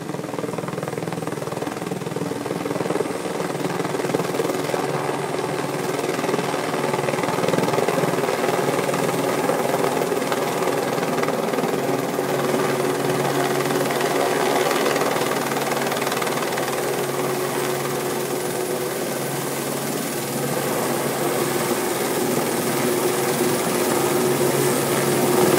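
Helicopter flying with a load slung beneath it, a steady drone of rotor and engine that holds even, growing a little louder near the end.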